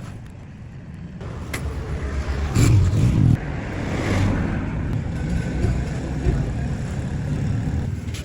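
Road traffic: a motor vehicle's low engine rumble going by, loudest about three seconds in, with a few faint clicks.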